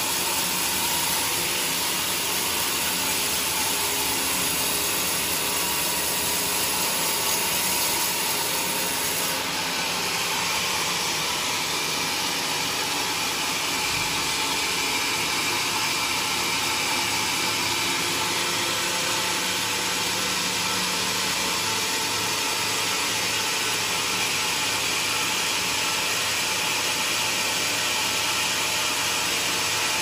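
Portable band sawmill running steadily, its band blade cutting lengthwise through a bayur log.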